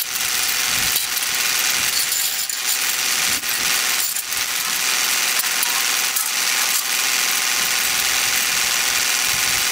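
Scattered metallic clicks and clinks from hand tools working on a rotary cutter's gearbox and blade bar, over a steady hiss.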